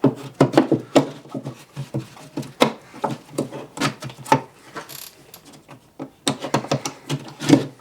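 Irregular scraping strokes and knocks from hand work on drywall at the opening for an electrical gang box.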